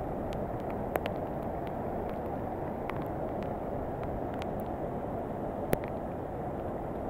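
Muddy floodwater pouring down a concrete wall in a broad cascade into a flooded underpass, a steady rushing of water. There are a couple of sharp clicks, one about a second in and one near the end.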